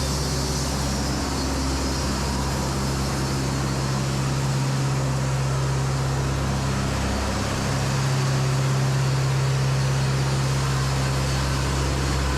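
Large diesel engine powering an Echo 45HD2 production band sawmill, running steadily under load with a constant low drone and mechanical noise. It gets slightly louder about eight seconds in.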